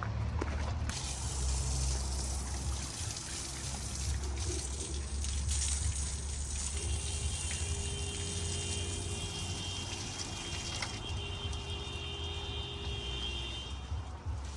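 Water running and splashing steadily as the backhoe is washed out, over a low steady hum.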